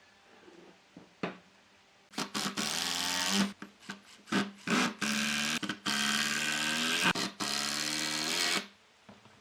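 A handheld power tool's motor switched on and off in repeated bursts, from about two seconds in until near the end, with a steady hum under a loud hiss.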